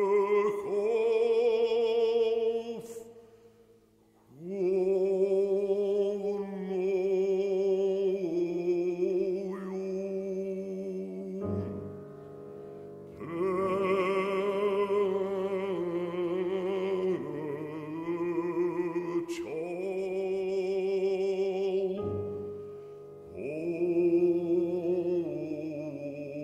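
Operatic bass voice singing long, held phrases with wide vibrato, accompanied by piano, on an Old Slavonic text. The voice stops briefly about three seconds in, and piano chords sound on their own for a moment around the middle and again near the end.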